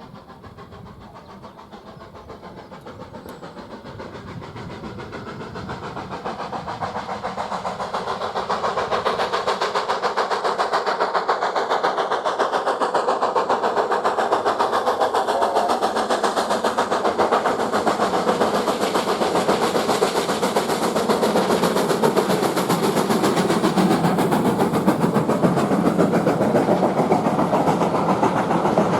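BR Standard Class 4MT 4-6-0 steam locomotive working hard, a fast run of exhaust beats that grows louder over the first eight seconds or so and then holds steady.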